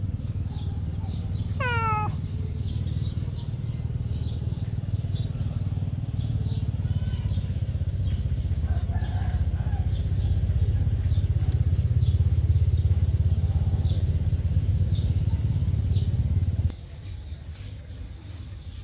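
A kitten meows once, a short call falling in pitch, about two seconds in, over a steady low rumble that cuts off suddenly near the end.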